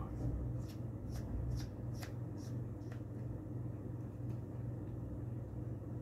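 Small screwdriver driving tiny screws into a laptop drive caddy: a run of light clicks about two a second that stops about three seconds in, over a steady low hum.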